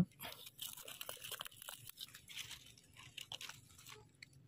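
Faint, irregular crunching and scraping of a large white wild mushroom being handled in a gloved hand and trimmed with a knife, with soil and dry leaves crackling.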